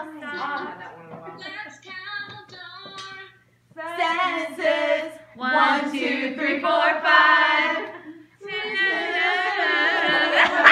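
A group of women singing a song together, phrase by phrase, with a short break about three and a half seconds in and louder singing near the end.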